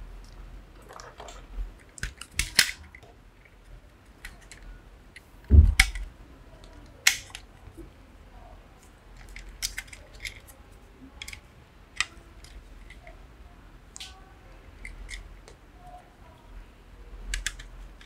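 Scattered sharp clicks and light knocks from handling a plastic wall switch panel and its cable while wiring it, with one low thump about five and a half seconds in.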